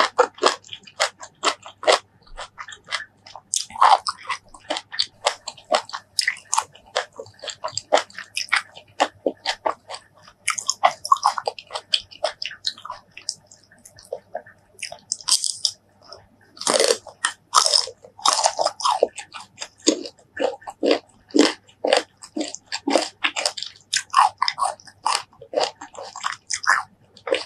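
Crunching bites and chewing of crisp, unripe green mango slices: many sharp crunches in quick succession, a lull about halfway through, then a fresh run of loud bites.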